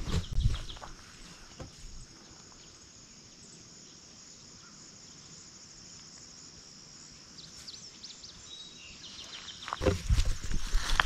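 Crickets and other insects chirring in a steady high chorus. Footsteps through grass are heard at the start and again from about ten seconds in.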